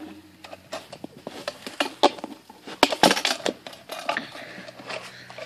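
Wooden trap box being pulled out and handled, with irregular knocks, clatters and scrapes of wood.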